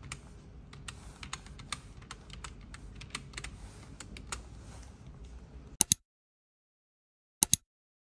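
Keystrokes on a library computer's keyboard, an irregular run of light clicks over low room hum as a search term is typed into the catalog. After about six seconds the background drops out, leaving two loud, sharp double clicks about a second and a half apart.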